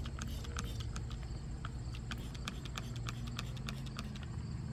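Trigger sprayer of a Rust-Oleum Rust Dissolver gel bottle pumped over and over, squirting gel onto a rusty steel tube: a quick run of short sharp clicks, about four a second, over a steady low hum.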